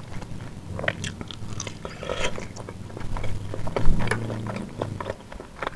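Close-up mouth sounds of a person biting and chewing soft chicken sempol in spicy sauce, with irregular small clicks and smacks.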